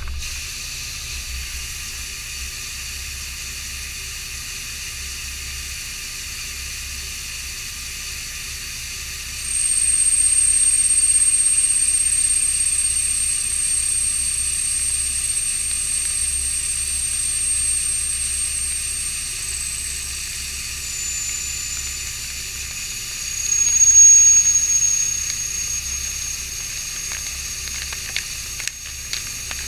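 Haas ST20SSY CNC lathe machining stainless steel bar stock: coolant spraying in a steady hiss over a low machine hum. About a third of the way in, a high, thin whine from the cut sets in. It steps down in pitch twice, is loudest about two-thirds through, and stops near the end.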